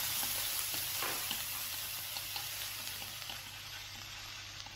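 Minced shallot and garlic sizzling in hot cooking oil in a wok, stirred with wooden chopsticks that tick lightly against the pan now and then. The sizzle slowly dies down over the last couple of seconds.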